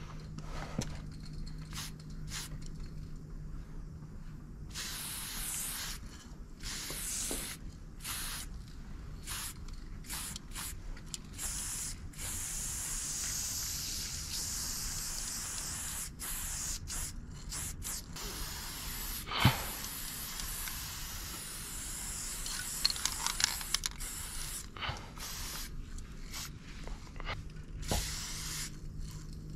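Aerosol spray-paint cans hissing in repeated bursts, many short and one long steady spray in the middle, as paint is laid onto a bus panel. A single sharp knock sounds about two-thirds of the way through.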